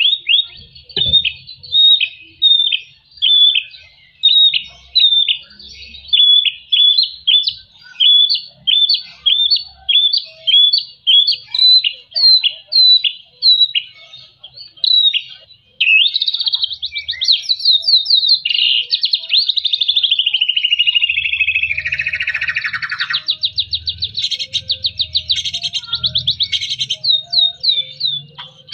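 White-rumped shama (murai batu) singing: a run of short, hooked whistled notes at about two a second, then from about halfway a fast unbroken chatter with a long falling sweep, ending in rapid repeated notes.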